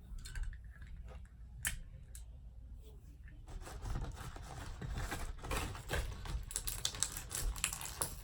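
Plastic toy packaging being handled and opened: a few separate clicks, then from about three and a half seconds in a dense run of crackling, clicking plastic.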